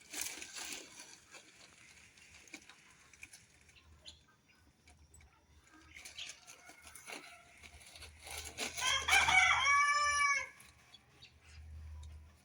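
A rooster crowing once, about nine seconds in, a single drawn-out call of nearly two seconds. A short clatter comes right at the start.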